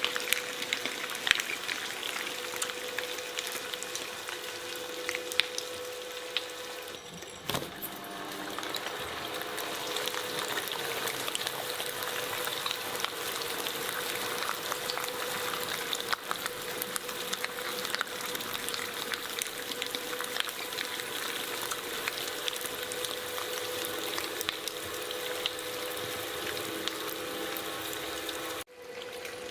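Shredder motor running with a steady hum while material crackles through its blades, broken by two sudden short drops, about seven seconds in and near the end.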